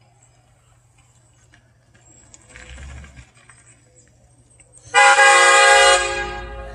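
Air-powered train horn fitted to a Toyota Tundra pickup gives one loud blast of several tones at once, starting suddenly about five seconds in. It holds for about a second, then tapers off as the air runs out.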